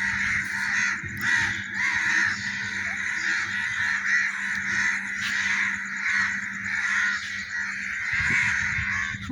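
A large flock of birds calling all at once, a dense unbroken chorus of overlapping calls.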